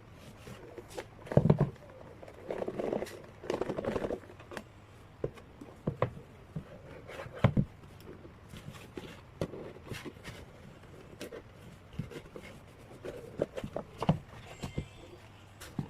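Album packaging being handled by hand: scattered taps and clicks, with two stretches of paper and plastic rustling, one a few seconds in and one near the end.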